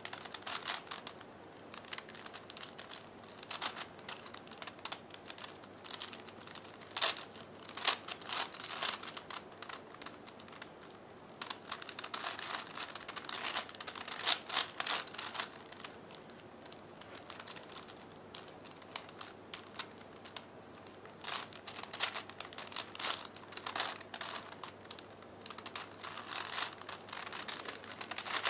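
Plastic layers of a V-Cube 5x5x5 puzzle cube clicking and clacking as they are turned by hand, in irregular runs of quick turns with short pauses between.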